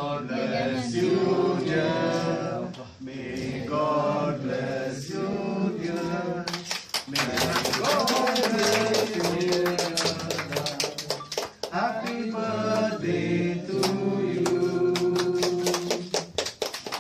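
Male singing with music. From about six and a half seconds in, many hands clap fast along with the singing until near the end.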